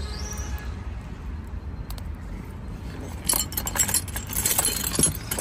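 Metal hand tools clinking and jangling as someone rummages through a soft tool bag, in quick clusters from about three seconds in.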